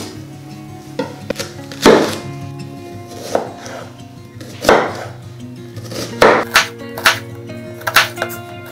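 Chef's knife cutting through onion and striking a wooden cutting board: separate crisp knocks, spaced out at first and coming quicker near the end. Background music plays underneath.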